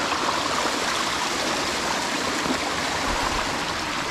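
Mountain stream water running and trickling over rock, a steady even rush.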